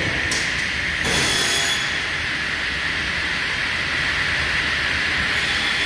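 Salvador TVB 700 saw running with a steady high hum. A brief hiss comes about a third of a second in, and a longer one about a second in.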